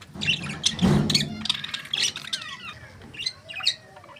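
Budgerigars chirping and warbling: a quick run of short, high chirps with fast pitch glides, with a louder, rougher burst about a second in.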